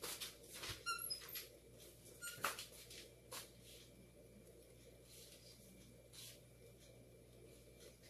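Faint household clicks and knocks, with a brief high squeak about a second in and a shorter one about two and a half seconds in, over a faint steady hum.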